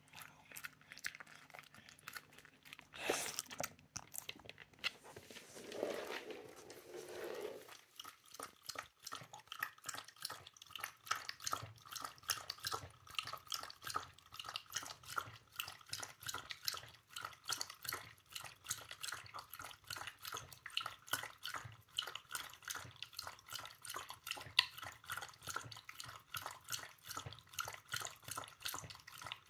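Shiba Inu lapping water from a stainless steel bowl: quick, regular laps that splash and clink against the metal, starting about eight seconds in and running steadily on. Before that there is a single knock and a short stretch of rustling.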